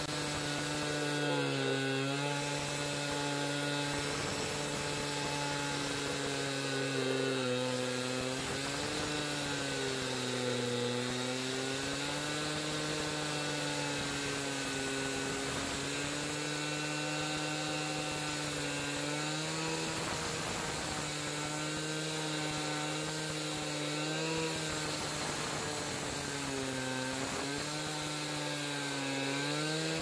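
Two-stroke gas-powered concrete cut-off saw running at high speed while cutting through a concrete slab. Its engine pitch sags and recovers every few seconds as the blade bites into the concrete.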